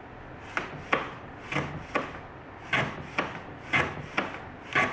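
Hand plane running on its side along a waxed mitre shooting board, shaving thin curls off the mitred end of a wooden piece. About five quick strokes, roughly one a second, each a pair of short scrapes.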